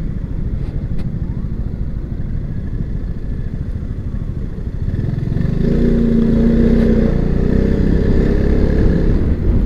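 Piaggio MP3 530 three-wheeled scooter being ridden, with engine and road noise heard from the saddle. About halfway through, the engine note grows louder.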